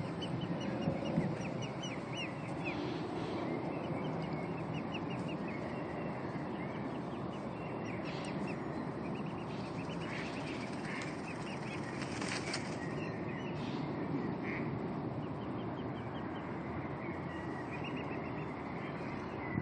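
Mute swan cygnets giving short, high peeping calls in scattered runs, over a steady low background rush.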